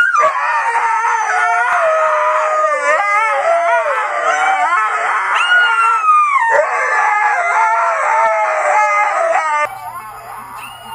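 Two huskies howling together in long, wavering, overlapping howls. Near the end the howling cuts off, and a quieter falling howl with a steady low hum follows.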